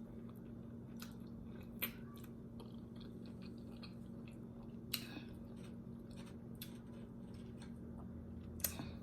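A person chewing oxtail quietly, with a few soft wet mouth clicks spread through, over a steady low hum.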